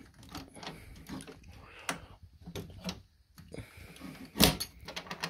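Pinball machine's steel coin door being handled and swung shut: scattered light metal clicks and rattles, then a louder clunk about four and a half seconds in.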